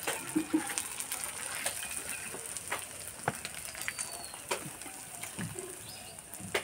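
Soaked sago pearls frying in oil in a wok: a steady sizzle with scattered sharp clicks.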